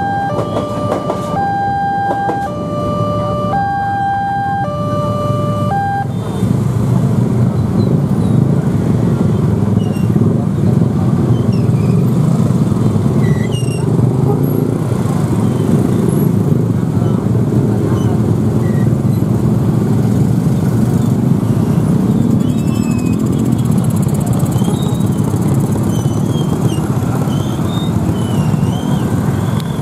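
Railway level-crossing alarm sounding an electronic two-tone chime, alternating high and low notes about every 0.7 s, which stops about six seconds in as the crossing clears. Then a louder, steady rumble of many motorcycle and car engines in the waiting traffic.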